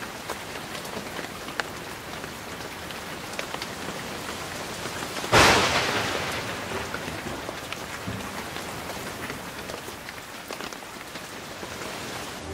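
Steady rain hissing with scattered drop ticks, broken about five seconds in by a sharp thunderclap whose rumble fades over the next few seconds.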